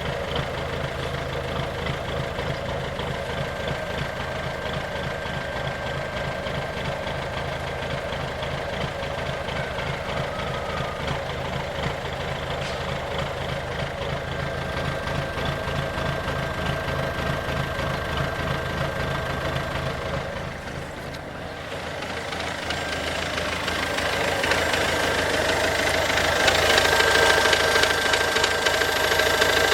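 Ford Focus C-Max 1.6 TDCi four-cylinder diesel engine idling with a rhythmic knock, the bad sound the owner presents as an engine problem. It dips briefly about two-thirds through, then runs louder near the end.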